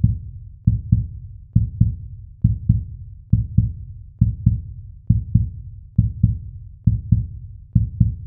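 Heartbeat sound effect: paired low thumps, lub-dub, repeating steadily a little more than once a second.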